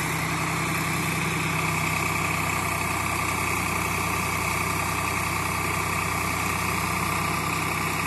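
Tractor's diesel engine running steadily, powering the hydraulics of a tractor-mounted backhoe as it digs soil.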